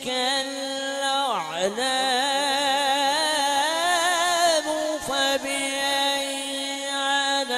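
A man's voice in melodic Quran recitation, drawing out a long note without words. It slides down and back up about a second and a half in, wavers in a vibrato ornament for a couple of seconds, then settles back onto a steady held pitch.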